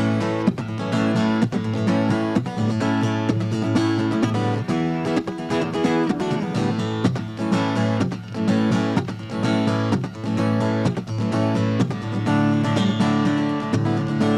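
Acoustic guitar strummed in a steady rhythm: an instrumental break between sung choruses of a live song.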